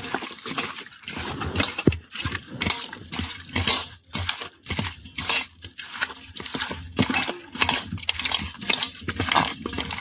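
Raw fish pieces being hand-mixed with salt and turmeric in a steel bowl: irregular wet squelches, with bangles and fish clinking against the metal bowl.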